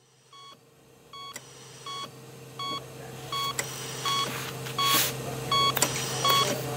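Electronic monitor beeping: short pitched beeps repeat about one and a half times a second, fading in and growing louder, over a steady low electrical hum. A brief hiss comes about five seconds in.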